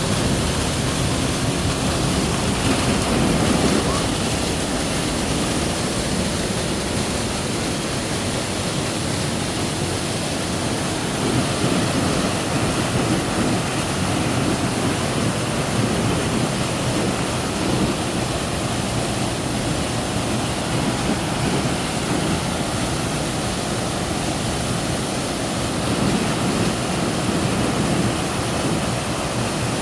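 Steady rush of falling water from a waterfall, an even hiss and roar that holds level throughout.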